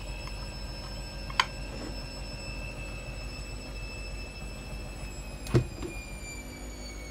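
A glass jar set down on a kitchen worktop: two sharp clinks about four seconds apart, the second heavier, over a steady low hum.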